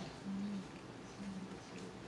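Low closed-mouth humming, 'mm' sounds from a man eating, in short stretches over quiet eating sounds.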